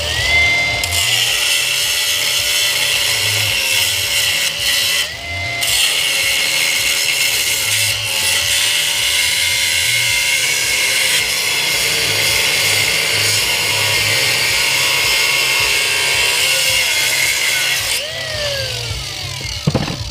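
Handheld electric power tool cutting through the fire hose near its coupling: the motor spins up with a rising whine, runs steadily with a brief dip under load about five seconds in, then winds down with a falling whine near the end.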